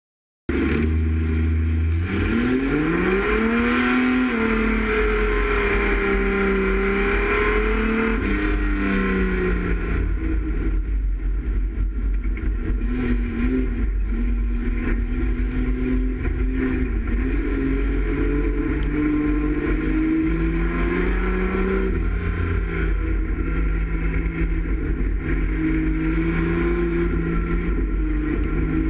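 Dirt-circuit race car's engine heard from inside the cabin, rising sharply in pitch as it accelerates about two seconds in, then rising and falling as the throttle is lifted and reapplied, over a heavy low rumble and road noise.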